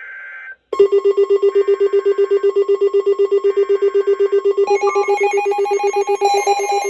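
Electronic alert tone: a brief steady beep, then a fast trilling tone like a telephone ring, about seven pulses a second. Higher tones are layered on about five seconds in, and again a second later.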